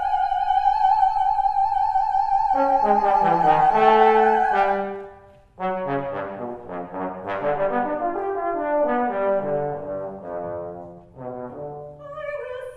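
A soprano holds a high note with vibrato for about five seconds while a trombone comes in beneath her. Then the trombone plays alone: a fast, leaping passage of short notes and slides, written to sound wild.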